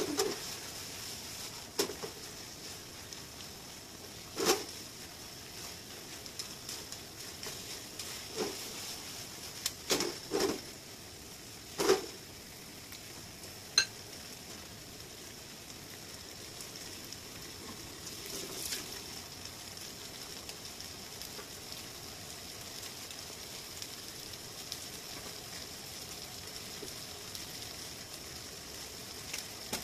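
Stir-fry of rapeseed blossoms, bamboo shoots, tofu and pork belly sizzling steadily in a frying pan, with sharp knocks of the utensils against the pan several times in the first half.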